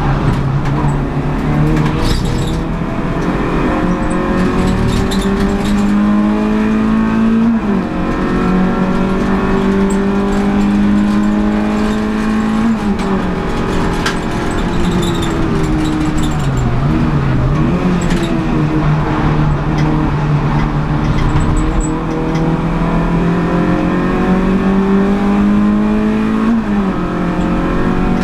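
Renault Clio 182's 2.0-litre four-cylinder engine racing at full throttle, heard from inside the stripped cabin: the revs climb steadily and drop sharply on three upshifts, and fall and pick up again near the middle as the car brakes and downshifts for a corner.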